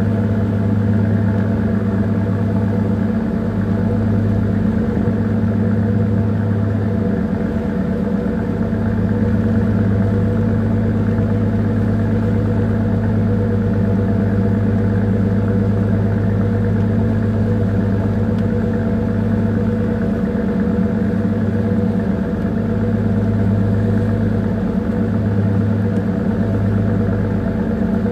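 Small bunker tanker's diesel engine running steadily underway: an even, low drone that does not change.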